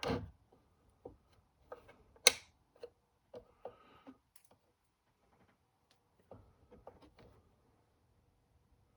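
Scattered small clicks and taps of objects being handled, the sharpest and loudest about two seconds in, with a quiet stretch near the middle and a few more soft knocks around six to seven seconds.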